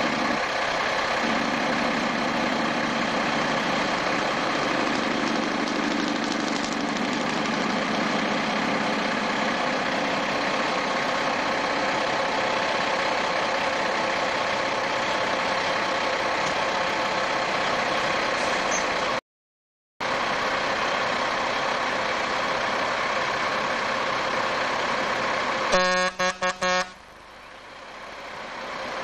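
Diesel engine of a Peterbilt tractor-trailer running steadily. Near the end the truck's horn sounds in a few quick toots, then the engine grows louder as the truck pulls away toward the listener. The sound cuts out completely for under a second about two-thirds through.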